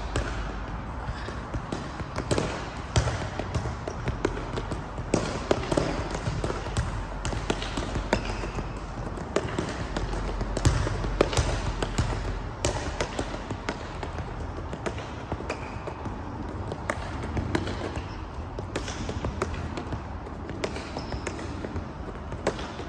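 Football kicked and juggled with the feet in freestyle lower-body tricks: an irregular run of dull touches on the ball, several a second.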